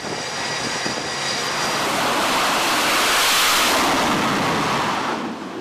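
Twin-engine F/A-18 fighter launching from a carrier deck: jet engine noise that swells to its loudest about three and a half seconds in, then fades away.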